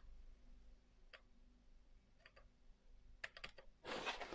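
Faint, sparse clicks of buttons being pressed on a plastic lapdock shell: single clicks about a second apart, then a quick cluster of clicks near the end, with near silence between. The dock makes no other sound in response, its battery perhaps empty.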